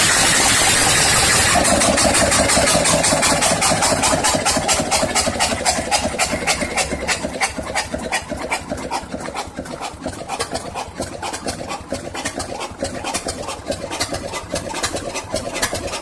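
Lister JP3 three-cylinder diesel engine running with a steady, rapid beat of firing pulses. It is louder and harsher for about the first two seconds, then settles into an even run.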